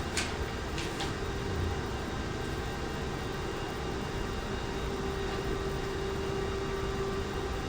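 Cryolipolysis slimming machine running with a steady hum and fan-like noise, with a steady tone through it. A few soft clicks come in the first second.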